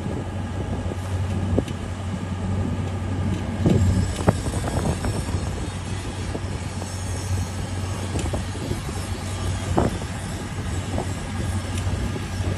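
A steady low mechanical drone, such as vehicle or engine noise heard from inside, with a few short knocks scattered through it.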